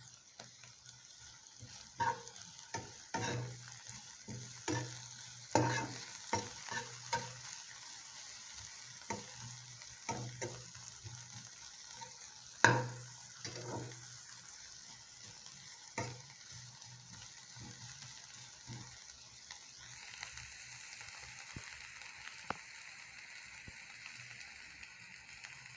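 Onions sizzling in hot cooking oil in a pan, with a utensil knocking and scraping against the pan as they are stirred, most often in the first half. The sizzle turns brighter and a little louder about twenty seconds in.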